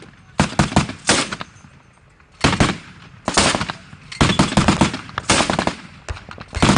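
Automatic gunfire in about seven short bursts of rapid shots, with pauses of up to a second between them.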